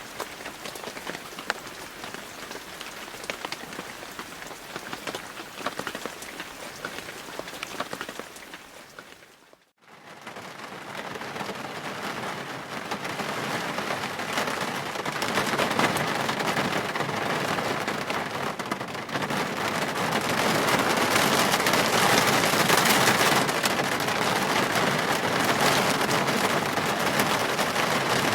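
Rain falling, with single drops heard as fine clicks, fades out about a third of the way through. A heavier, denser rain then fades in and builds to a louder downpour.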